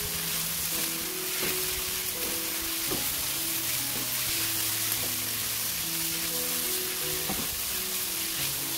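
Sliced konjac and vegetables sizzling as they are stir-fried in a nonstick wok, with a spatula scraping and knocking against the pan every second or two. Soft background music underneath.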